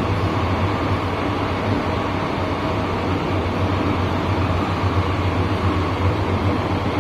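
Steady interior running noise of an MTR M-Train electric multiple unit in motion: a low hum with an even wheel-on-rail rumble and hiss, unchanging in level.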